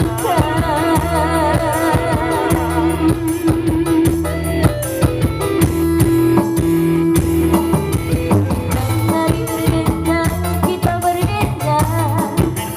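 Live band music with singing: a wavering, vibrato-laden melody over the first few seconds, then a long held note, over a steady bass line and drum beat.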